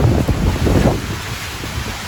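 Strong typhoon wind gusting and buffeting the microphone with a heavy rumble, loudest in the first second and easing off after.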